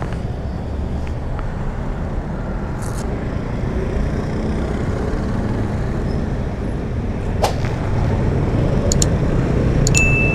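Benelli motorcycle engine running as the bike pulls away and rides slowly through traffic, mixed with wind rumble on the camera microphone and growing slowly louder. A few sharp clicks, and a short high beep near the end.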